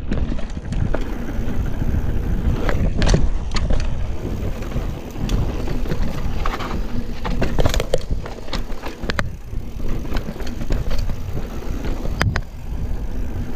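Mountain bike riding over sandstone slickrock: a steady low rumble from the tyres rolling on rock, with frequent sharp clicks and knocks as the bike rattles over bumps and ledges.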